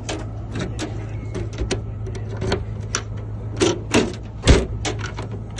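Irregular metallic clicks and clacks from a truck compartment lock being handled and worked after its spring is reseated, with a few sharper knocks about three and a half to four and a half seconds in. A steady low hum runs underneath.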